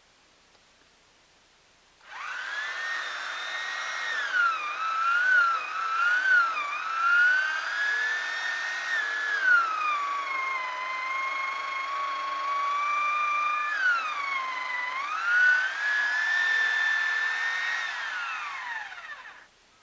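Chainsaw running at high revs while cutting a log into firewood rounds. It starts abruptly about two seconds in, and its pitch sags and recovers several times as the chain works through the wood. Near the end the pitch falls away and the saw stops.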